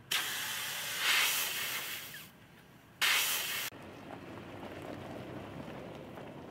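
Air hissing out of a 2018 Toyota 4Runner's tyre through the open valve stem as the tyre is aired down for the trail: one long hiss of about two seconds, then a shorter hiss that cuts off suddenly. A fainter steady noise follows.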